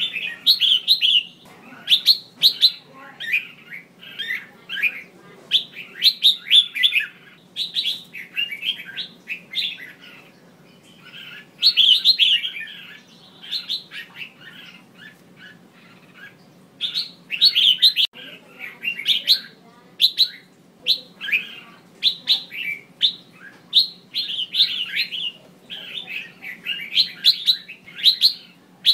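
Female red-whiskered bulbul calling: quick runs of short chirped and warbled phrases in bursts with brief pauses, over a faint steady hum.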